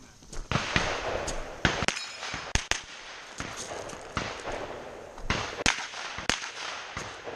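About a dozen gunshots from a semi-automatic long gun, fired in quick irregular pairs and short strings during a 3-gun stage run.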